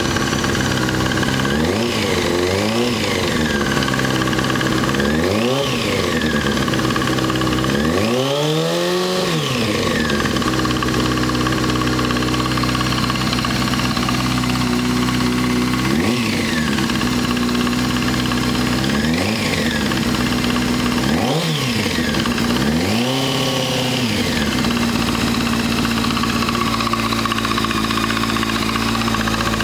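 Honda CBR600 F4i motorcycle's inline-four engine idling and revved in about eight short blips, the longest about eight seconds in, then settling to a steady idle. It has a ticking noise that a new OEM cam chain tensioner has not cured.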